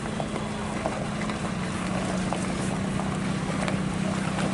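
Diesel engine of a UD Quester tanker truck running with a steady low drone.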